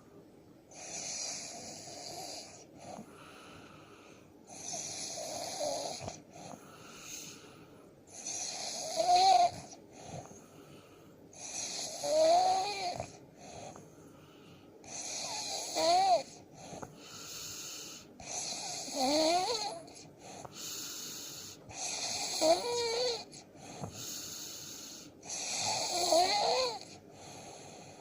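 A man snoring in his sleep: about eight snores, one every three and a half seconds or so, each with a wavering whistle in its pitch, the louder ones from about a third of the way in.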